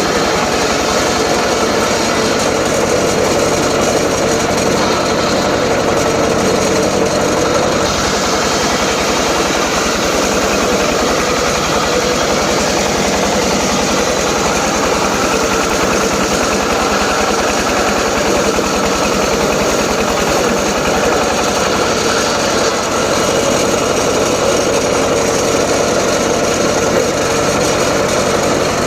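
Homemade circular saw rig running steadily, ripping teak timber, the blade's pitch rising and falling as it goes through the wood.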